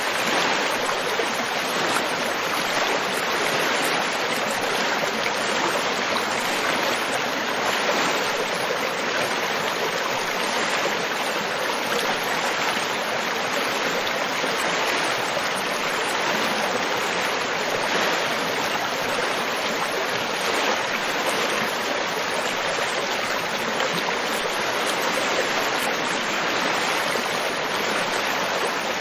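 River water flowing and splashing steadily: a continuous rushing babble with no pauses or changes.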